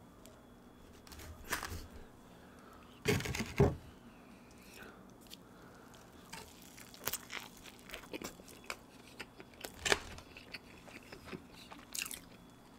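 A person biting into a Spam musubi close to the microphone, the loudest bite about three seconds in, then chewing with small scattered clicks.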